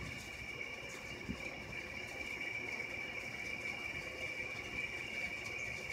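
A chorus of night insects trilling steadily at one high pitch.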